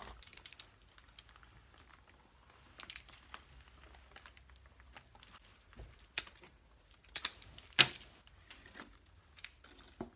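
Rustling and crinkling of moss with light clicks of thin binding wire as it is wound round a moss-covered chicken-wire cone, with a few sharper clicks, the loudest about three-quarters of the way through.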